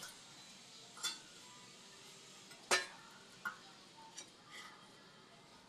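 A few irregularly spaced metallic clicks and clinks, the loudest almost three seconds in, over a faint background hiss.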